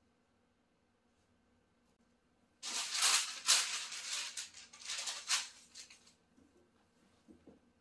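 A sheet of brown cover paper rustling and crinkling as it is handled and laid over a shirt transfer, starting about two and a half seconds in and lasting about three and a half seconds.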